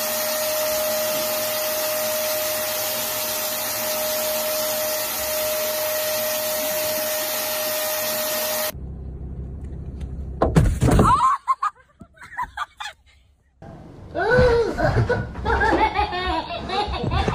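Vacuum cleaner running steadily through a long hose, a constant motor whine over its rushing air, cutting off abruptly about halfway through. After a brief loud cry and a near-silent pause, voices and laughter, a baby's among them.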